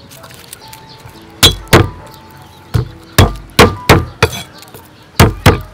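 Steel cleaver coming down on garlic cloves on a thick round wooden chopping block: about nine sharp thwacks in uneven pairs and singles, beginning about a second and a half in.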